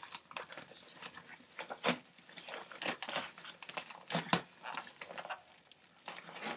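Brown paper packaging being torn open and crumpled by hand: a run of irregular crinkles and short rips, several of them sharper and louder.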